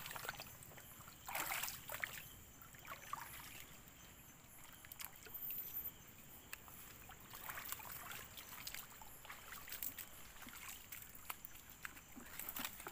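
Footsteps wading through shallow water and mud, with irregular sloshes and small splashes.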